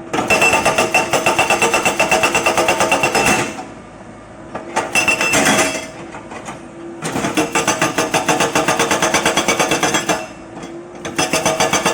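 Excavator-mounted hydraulic breaker hammering in runs of rapid blows, about seven a second. There are two long runs of about three seconds each, with short runs between and near the end. The excavator's diesel engine runs steadily in the gaps.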